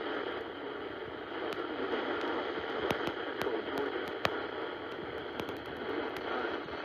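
Weak radio reception: a steady static hiss with scattered sharp crackling clicks, the sound limited in range as through a radio receiver.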